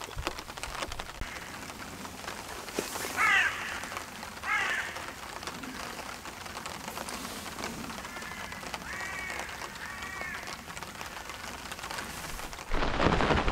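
Steady rain pattering on a pond's surface, with a bird calling several times: two calls about a third of the way in and three in a row past the middle. Near the end the rain noise jumps suddenly to a louder, closer hiss.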